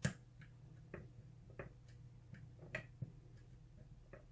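Faint, irregular clicking of a lock pick probing the pins of a pin-tumbler lock, about ten small clicks, the sharpest one right at the start.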